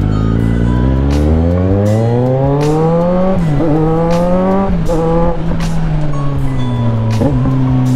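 Kawasaki Z900 motorcycle engine with its breadbox muffler deleted, accelerating through the gears. The pitch climbs, drops sharply at a shift about three and a half seconds in, climbs again, drops at another shift near the five-second mark, then falls as it slows. Background music with a steady beat runs over it.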